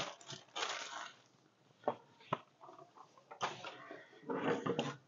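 Plastic bag of mini marshmallows rustling and crinkling in short bursts as it is handled and set down, with a few sharp taps in between.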